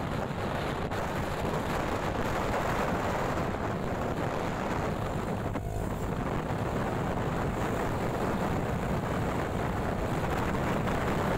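Steady wind rush buffeting the microphone on a moving motorcycle, mixed with the bike's engine and road noise at cruising speed.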